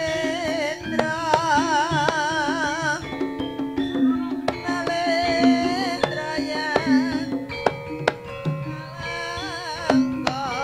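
Live Javanese jaranan music: sharp hand-drum strokes, repeating low pitched notes, and a high melody line with a strong wavering vibrato weaving over them.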